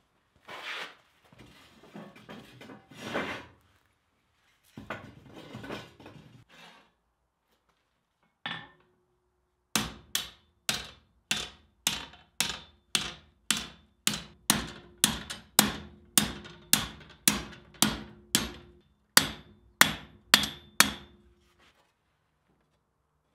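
Blacksmith's hammer striking a steel bar on a swage block, about two blows a second for some eleven seconds, each with a short metallic ring. Before the blows come several seconds of scraping and clattering as steel and tools are handled, then a single blow.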